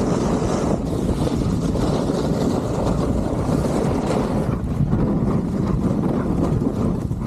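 Steady wind rush buffeting the microphone from riding downhill on a snowboard, a dense low noise with no distinct strokes or tones.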